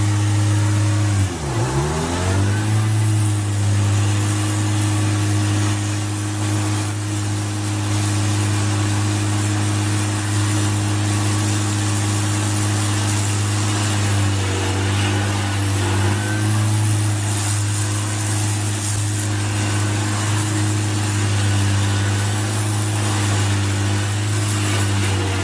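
Heavy machine's engine running steadily at high speed. Its pitch drops sharply and recovers about a second and a half in, and dips briefly again about halfway through, as it labours under load.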